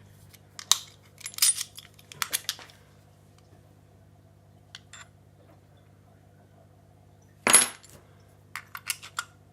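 Small metallic clicks and scrapes of a Securit six-lever padlock and lever-lock picks being handled and set in the keyway: a few clusters of clicks in the first three seconds, a louder scrape a little after seven seconds, then a quick run of clicks near the end.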